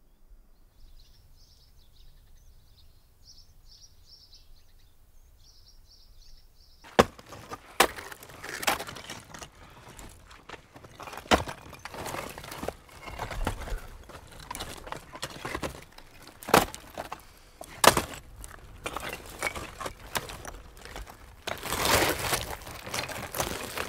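Faint high bird chirps at first; then, about seven seconds in, loose lava stones knocking, clacking and grinding as they are pried up and shifted by hand, with sharp irregular clacks and a longer crunching scrape near the end.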